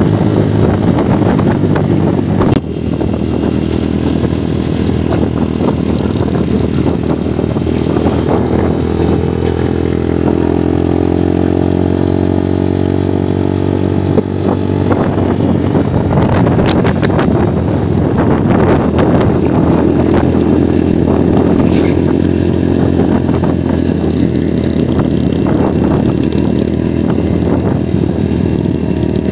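Supermoto motorcycle engine running while riding, picked up close by a camera mounted on the bike. The engine note climbs steadily for a few seconds in the middle as the bike accelerates. The sound jumps abruptly twice, about two and a half seconds in and again near the middle.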